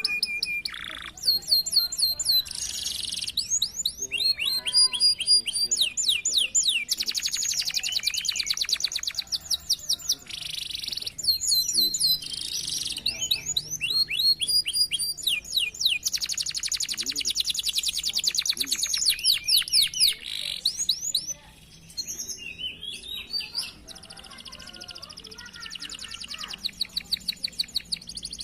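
Domestic canary singing a long, high-pitched song of rapid trills and rolls, phrases of fast repeated notes changing every few seconds, with a short break about three-quarters of the way through.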